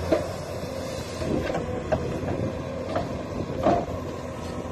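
Komatsu tracked excavator's diesel engine running steadily, with several short knocks and clunks over it.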